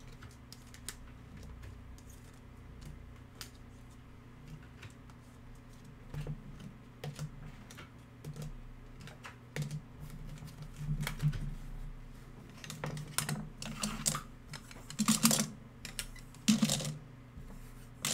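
Hard plastic card holders clicking and clacking against each other as a stack of cased trading cards is handled: sparse light ticks at first, then more frequent, louder clacks in the second half.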